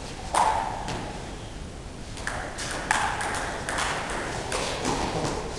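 Table tennis ball struck back and forth between bats and table in a doubles rally: one loud click just after the start, then a quick run of sharp clicks from about two seconds in, each ringing briefly in the hall.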